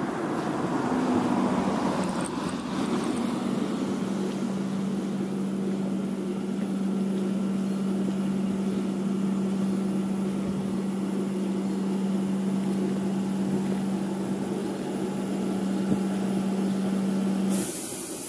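A city bus close by, probably a Moscow electric bus: a steady hum, a short loud hiss of air with a high whistle about two seconds in, and near the end the hum cuts off and a hiss of escaping air takes over.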